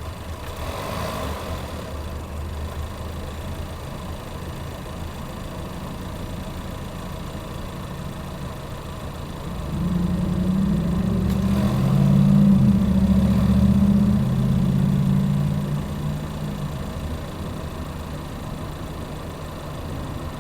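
2019 Chevrolet Equinox running with a steady low rumble. About ten seconds in, a louder low humming drone swells for around six seconds, then settles back to the rumble.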